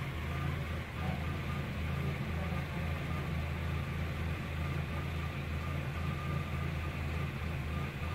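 Honda Odyssey's engine idling steadily, a low even hum.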